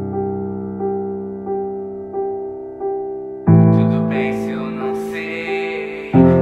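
Background music: a keyboard holds low chords under a note repeated about every 0.7 seconds. A new, louder chord comes in about 3.5 seconds in, with a brighter layer added on top, and another chord comes in near the end.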